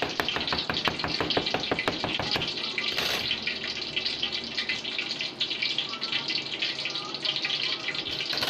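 Rapid light taps, about six a second for the first two and a half seconds, of a fork pricking flattened pizza dough against a steel work table, over a steady background hiss.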